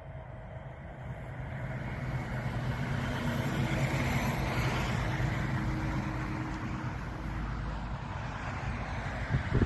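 A motor vehicle passing on a nearby road, its engine and tyre noise swelling over the first few seconds and then easing slightly. A short sharp knock comes near the end.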